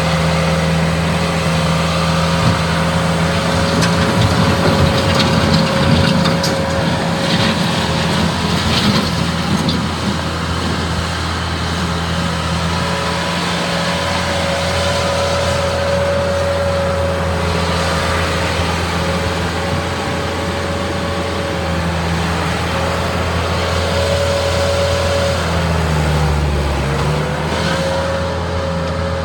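Bobcat 873 skid steer loader's diesel engine running steadily. Its note dips and recovers about 26 seconds in, as if briefly pulled down by a load.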